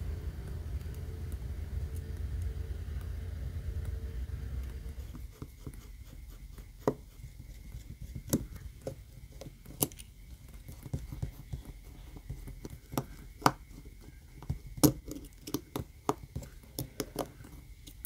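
Small tool-on-metal clicks and light taps from a precision screwdriver and tweezers working tiny screws and brackets inside an opened iPhone. They come at irregular intervals, with a handful of sharper clicks among many faint ticks, after a few seconds of low handling rumble.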